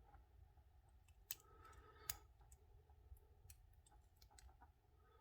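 Faint, scattered clicks of a hook pick and tension wrench working in the keyway of a brass padlock, with two sharper clicks about a second and two seconds in. No pin is setting: the pins give no feedback.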